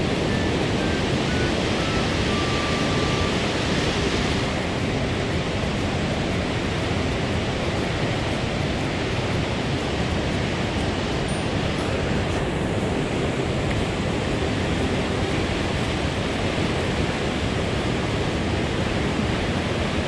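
Mountain trout stream running fast over rocks: a steady rush of water.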